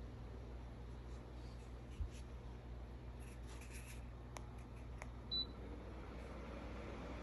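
A tower fan's control panel gives one short, high beep about five seconds in as it takes a command from its remote, over the fan's faint steady hum. A dull thump comes about two seconds in, with a couple of light clicks shortly before the beep.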